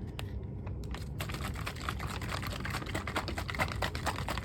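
Plastic bottle of aloe vera jelly drink being shaken to mix its settled contents: a dense, rapid rattle of clicks and sloshing that starts about a second in.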